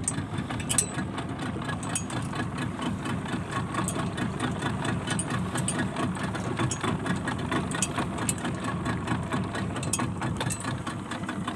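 Small fishing boat's engine running steadily, with frequent mechanical clicks and rattles over it, as a bottom longline is hauled aboard.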